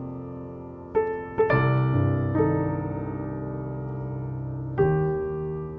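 Soft background piano music: a handful of slow chords, each struck and left to ring out.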